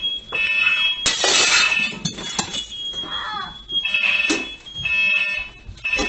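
Smoke alarm sounding a shrill, repeating beep about once a second, set off by a house fire. About a second in, a loud burst of noise lasting roughly a second rises over the beeping.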